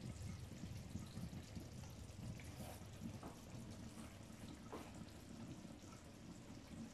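Faint bubbling of pots simmering on an induction hob, with a few soft pops.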